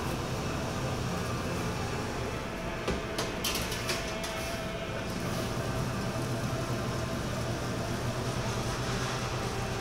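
Steady low machine hum and hiss of bakery equipment, with a few brief clicks or rustles about three to four seconds in.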